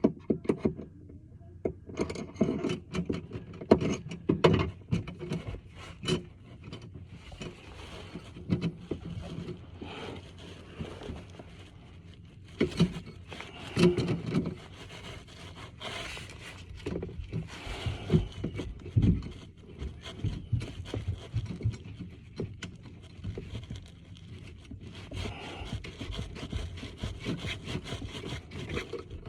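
Scattered clicks and knocks with intermittent scraping and rubbing: hand work with a screwdriver on a bathtub drain assembly, screws being driven and parts snugged up.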